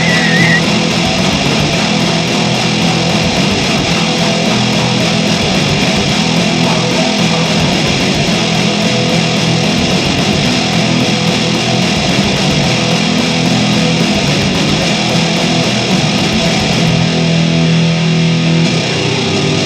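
Loud, distorted electric guitar and bass playing a rock demo recording. About three seconds before the end, the highest sounds drop away and a held low note stands out.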